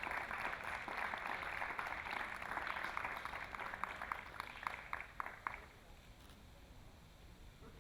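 Audience applauding, thinning out to a few last single claps and stopping about five and a half seconds in.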